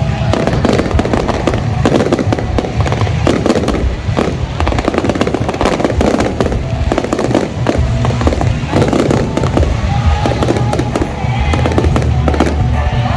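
Fireworks bursting and crackling in a dense, unbroken barrage of sharp bangs.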